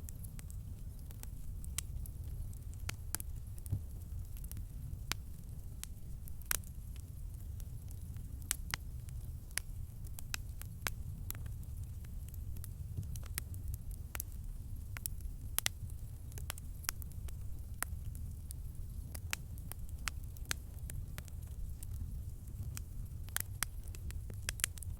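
Wood campfire crackling, with irregular sharp pops and snaps over a steady low rumble of the flames.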